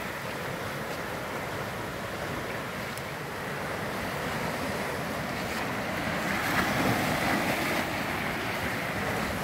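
Ocean surf washing over rocks and up the sand, a steady wash that surges louder about two-thirds of the way through as a wave runs in.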